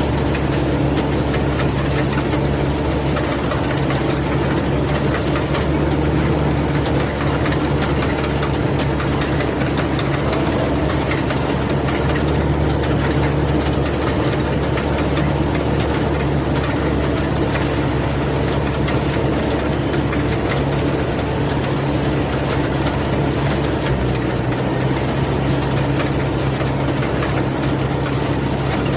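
Rice combine harvester's engine running steadily with a constant low hum.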